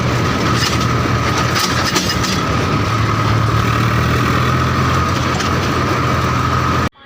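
Swaraj tractor's diesel engine running steadily under way, with a constant high whine and loose rattling clicks from the tractor. The sound cuts off suddenly near the end.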